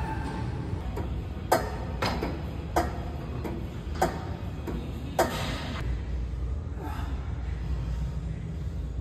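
Metal gym equipment clanking five times at uneven intervals, over a steady low rumble.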